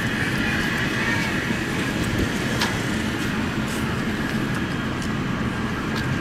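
A MetroLink light rail car standing at the platform, its onboard equipment giving a steady hum with a constant higher whine over it. A single sharp click comes about two and a half seconds in.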